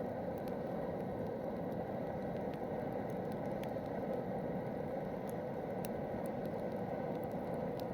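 Campfire burning: a steady rushing hiss with scattered small crackles and pops from the burning wood.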